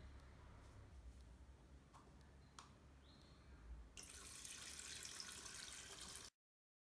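Water running out of a tank's syringe outlet and splashing into a plastic basin, starting about four seconds in after a few faint handling clicks, then cutting off suddenly.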